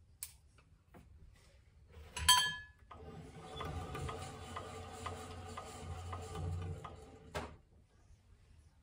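Overhead target-carrier pulley line running for about four seconds, a steady whirring rattle with regular ticks, as a paper target is brought back up the range; it stops with a clunk. Before it comes a sharp metallic clank with a short ring, the loudest sound.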